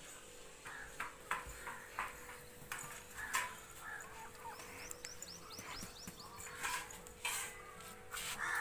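Birds calling, with a few chicken-like clucks and a quick run of high chirps about halfway through, among scattered light knocks. A faint steady hum runs underneath.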